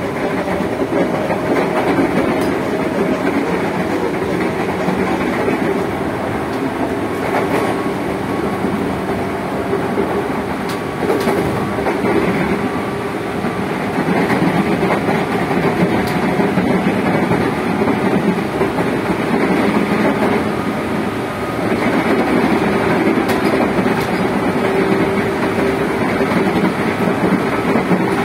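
Inside the motor car of a JR 205 series electric commuter train running along the line: the traction motors hum over a loud, steady rumble of the wheels on the rails, with occasional clicks over rail joints. The sound gets a little louder about halfway through and again a few seconds later.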